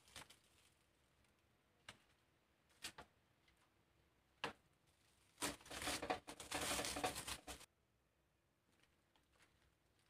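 Charred, dry sal leaves crackling and rustling as a fire-roasted leaf packet is pressed and unwrapped by hand on a bamboo tray. A few scattered single crackles come first, then a denser stretch of crunching and rustling about halfway through that lasts roughly two seconds.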